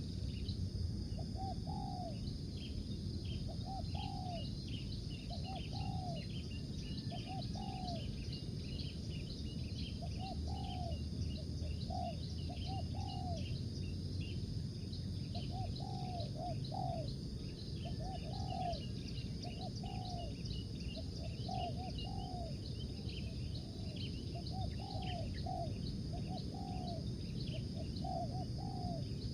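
Spotted dove cooing over and over, short arched coos in runs of two or three, over a steady low rumble and faint rapid high chirping.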